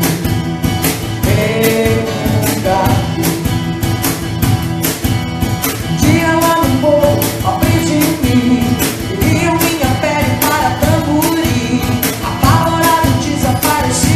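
A band playing a song: a singer over guitar and a steady drum beat.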